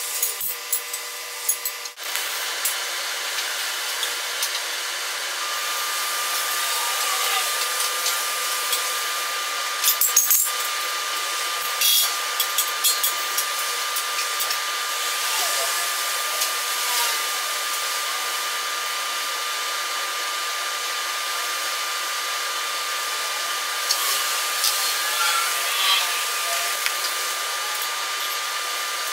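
Oxy-fuel gas welding torch hissing steadily as it welds steel, with a few sharp clicks about ten and twelve seconds in and again near the end. A faint steady high tone sits over the hiss from about five seconds in.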